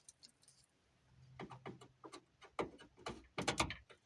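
Irregular plastic clicks and knocks of door wiring clips and connectors being worked loose by hand, starting about a second and a half in and bunching together near the end.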